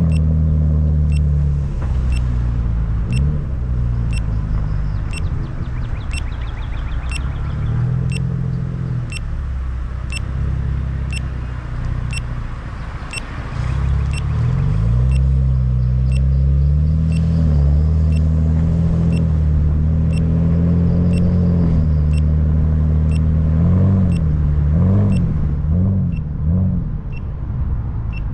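Car engine running during a drive, its pitch rising and falling as the car speeds up and slows, with a quick up-and-down wobble near the end. A short, high beep repeats steadily about every three-quarters of a second throughout.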